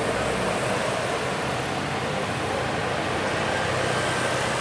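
Road traffic: a large vehicle's engine running steadily under a continuous haze of road noise.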